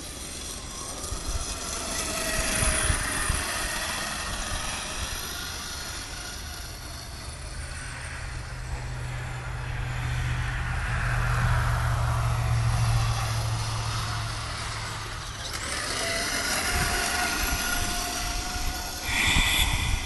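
Kyosho Blizzard RC snowcat's electric motor and gearbox whining, the pitch gliding up and down and the sound swelling and fading in waves as it drives back and forth over the snow. A low steady hum joins in the middle.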